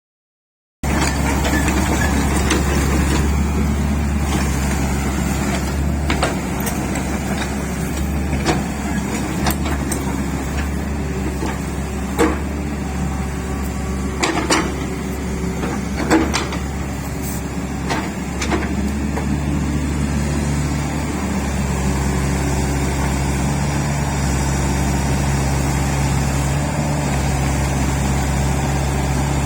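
Hitachi ZX60 mini excavator's diesel engine running steadily, with a few short sharp knocks or clanks along the way.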